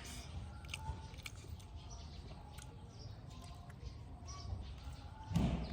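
Outdoor background with scattered small bird chirps and a few light clicks over a low steady rumble; a short, louder dull noise comes near the end.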